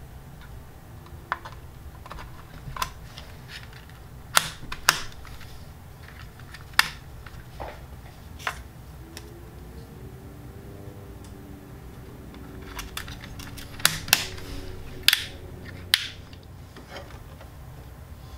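Scattered sharp plastic clicks and knocks as Corsair Vengeance DDR4 memory sticks are handled and pushed into a motherboard's RAM slots, several coming in quick pairs.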